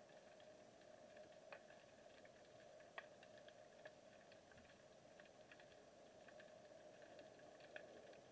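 Near silence underwater, picked up by a submerged camera: a faint steady hum with scattered faint clicks.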